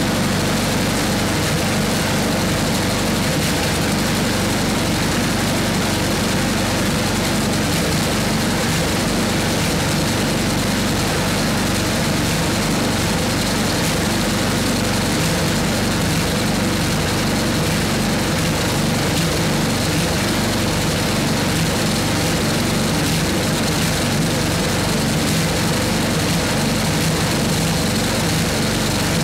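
An 8hp Briggs & Stratton single-cylinder engine on a 1979 Toro 826 snowblower, running steadily at an even speed.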